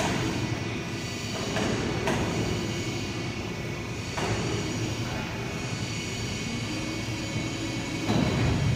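Steel-plate flipping machine running as its arms turn a large welded plate: a steady mechanical drone with a high whine over it, shifting in tone a few times and growing louder near the end.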